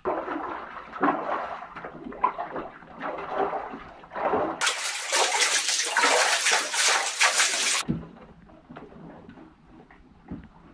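Water splashing and sloshing, then a louder rush of pouring water for about three seconds, starting about four and a half seconds in and cutting off suddenly.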